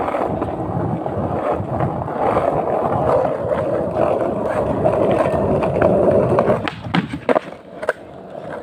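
Skateboard wheels rolling over rough, cracked concrete, a steady dense rolling noise. About six and a half seconds in it drops away and a few sharp clicks follow.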